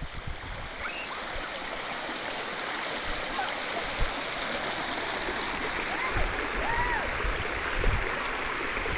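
Muddy floodwater rushing steadily along a channel, growing a little louder.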